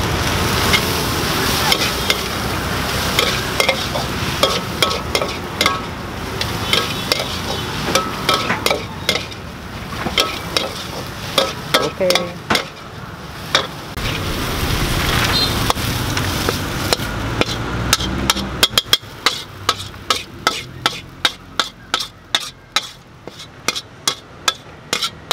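Stir-frying at a street-food stall: a spatula scrapes and clatters against the pan over a steady sizzle. In the last several seconds the sizzle falls away and a run of sharp taps, about two a second, takes over.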